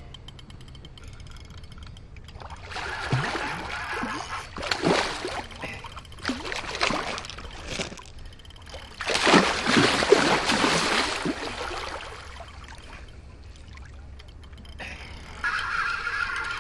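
A large hooked sturgeon thrashing and splashing at the water's surface during the fight, in two spells of rough splashing, the second the louder.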